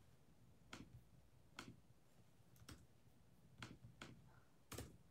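Faint, short clicks, about six of them at uneven intervals, against near-silent room tone.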